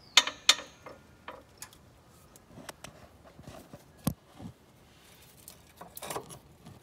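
Scattered sharp metal clicks and clinks as a rusted rear transmission mount, its bolts already out, is worked loose by hand. Two loud clicks come right at the start, a sharp one about four seconds in, and a few light ones near the end.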